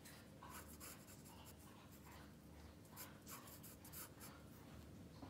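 Faint scratching of a graphite pencil on graph paper as it draws a series of short strokes.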